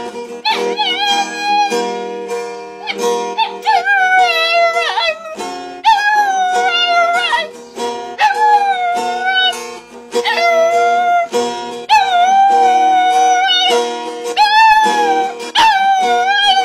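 A dog howling along to music: a series of about eight long, wavering howls, each held for a second or two, over the steady notes of the accompaniment.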